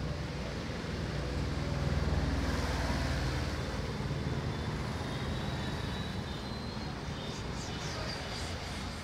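Street traffic: a steady low rumble of passing vehicles, swelling about two seconds in as one goes by close.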